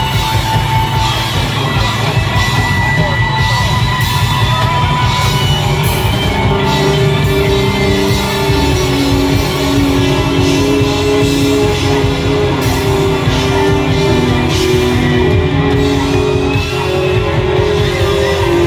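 A rock band playing live: electric guitars, bass and drums, heard from within the audience in a club. From about five seconds in, a guitar holds long sustained notes over the band.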